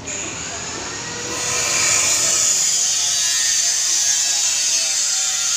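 A loud, steady hiss that starts abruptly and grows louder about a second and a half in, then holds, with faint gliding tones underneath.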